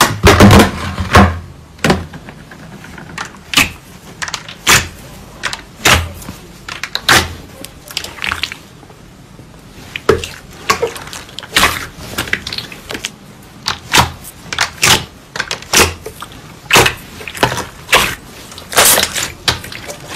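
Hands poking, squeezing and folding a large mass of glossy purple slime, giving a series of short, wet pops and squelches, one to two a second, the loudest at the very start.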